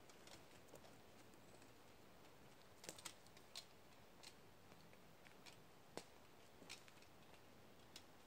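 Near silence in a spruce forest, broken by a few faint, sharp clicks at irregular intervals.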